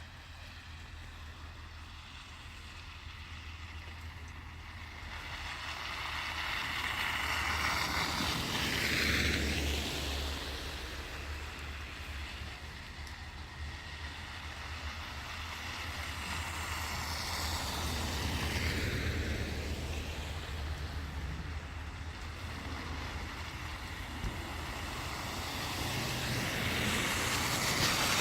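Cars passing one after another on a snowy, slushy street: the tyre hiss swells and fades three times, about a third of the way in, past the middle, and near the end, over a steady low rumble.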